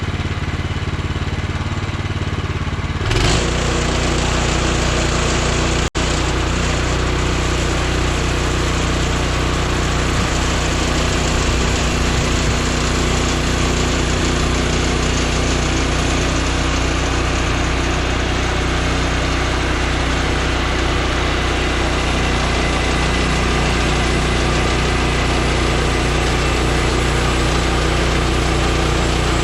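Gas engine of a portable bandsaw sawmill running. About three seconds in it speeds up with a jump in level and a brighter, fuller noise, then runs steadily at that speed.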